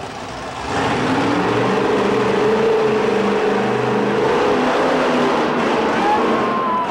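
Monster truck engine revving hard as the truck accelerates away and climbs onto a row of junk cars, with a brief high squeal near the end.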